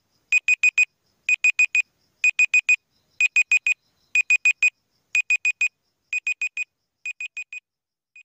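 Countdown-timer beeping like an alarm clock: quick bursts of four high beeps, one burst each second, with the last two bursts quieter.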